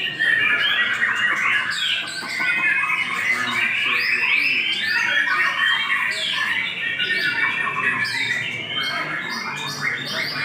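Songbird singing a long, unbroken song of rapid chirps, trills and whistles.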